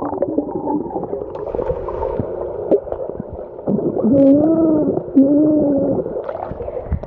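A child's voice recorded underwater in a swimming pool, muffled and unintelligible, over bubbling water. There are two drawn-out vocal sounds, rising then falling in pitch, about four and five seconds in, as she tries to say something underwater.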